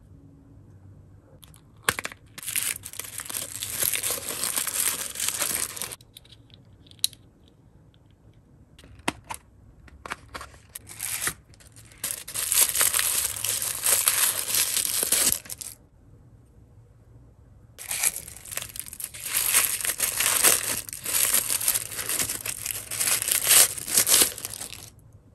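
Crinkly pink plastic wrapping being torn open and crumpled by hand to free small toy accessories, in three long spells of crinkling. A few small clicks fall in the quieter gaps between them.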